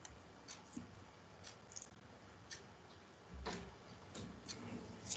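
Faint, irregular clicks from a computer pointing device, about two a second, over a faint steady background hiss.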